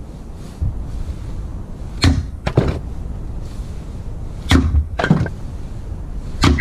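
Fiskars X17 splitting axe chopping firewood: three sharp strikes about two seconds apart, each followed about half a second later by a second knock of wood.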